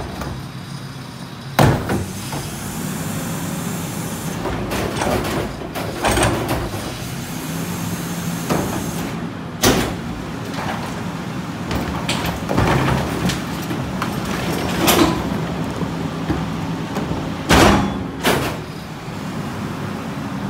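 Mack LR Heil Multipack rear-loader garbage truck running steadily, with the hum of its engine and hydraulics, while plastic wheeled carts are tipped into the hopper by hand, giving several sharp bangs as they strike the hopper edge.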